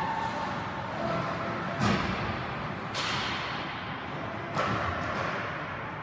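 Three sharp thuds about a second and a half apart, each ringing briefly, over a steady background murmur.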